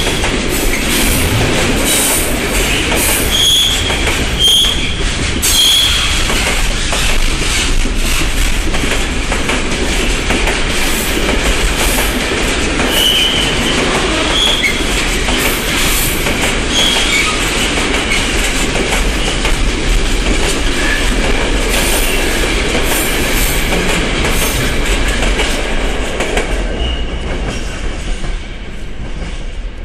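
Container freight train rolling past, its wagons clattering over the rail joints, with short high wheel squeals now and then. The sound drops off near the end as the last wagon goes by.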